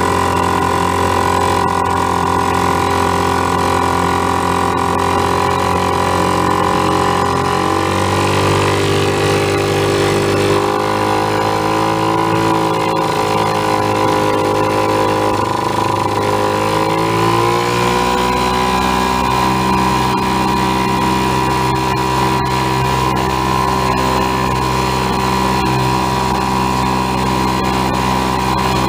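Vintage two-stroke outboard motor running under way, with wake and spray hissing along the hull. Its engine note shifts up and down several times through the middle of the stretch as the motor's control is worked by hand, then settles to a steady pitch.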